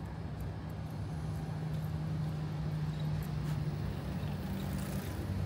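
Motor vehicle engine running with a steady low hum, amid city street noise.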